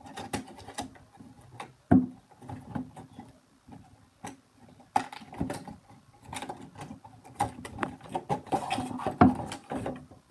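A new wooden kendama and its packaging being handled: irregular rustling and light clicks, with sharp knocks about two seconds in and again near the end.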